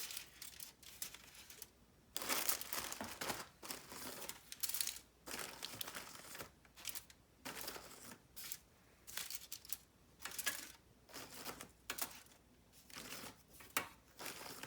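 Crackers being set down one after another on a foil-lined baking sheet, with irregular crinkling and rustling of the foil and cracker packaging.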